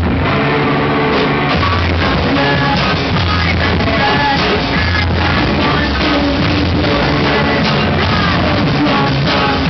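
A rock band playing loudly live, with guitar, drums, low bass notes held about a second at a time, and a singer's voice over the top.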